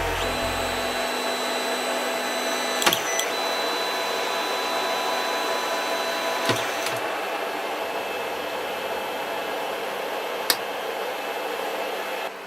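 3D printer running: a steady whir of cooling fans with thin, steady motor tones, and a few short clicks about 3, 6½ and 10½ seconds in.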